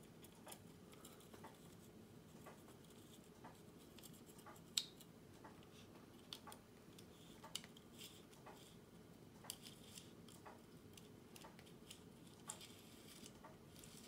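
Near silence with faint, scattered clicks of small metal parts being handled: the rotary dial's spring tensioner being turned and seated, with one slightly louder click about five seconds in.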